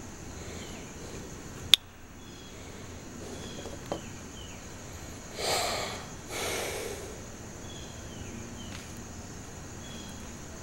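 Light hand-sanding of a steel knife blade with sandpaper, which stops with a sharp click about two seconds in. A smaller click follows, then two short rushing sounds about half a second apart, each lasting about half a second.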